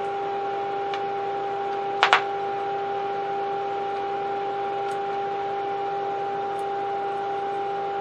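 Steady mid-pitched test tone from the Philco 37-640's loudspeaker: the signal generator's modulated signal passing through the set while its IF transformer coils are peaked by ear. Two quick clicks about two seconds in.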